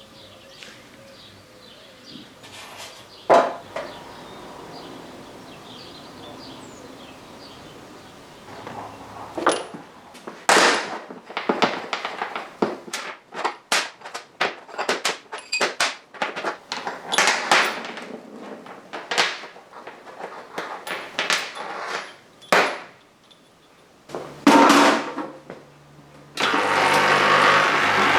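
Hand tools working on metal motorcycle parts: an irregular run of sharp knocks and clinks, then a steadier, louder noise that starts near the end.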